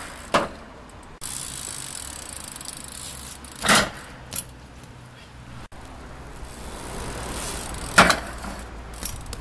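BMX bike wheels knocking down onto a low skatepark box ledge several times, the loudest knocks about a third of the way in and near the end, over the steady rolling of tyres on asphalt.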